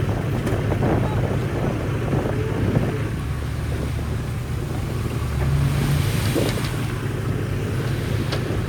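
Shantui bulldozer's diesel engine running with a steady low drone, rising briefly about five seconds in as it takes load.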